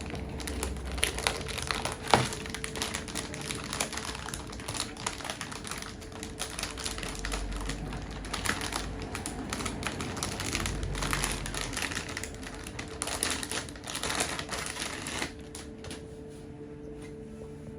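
Hands handling graphics-card packaging: a busy run of irregular clicks, taps and crinkling of cardboard and plastic, with one sharper knock about two seconds in. It dies down about fifteen seconds in.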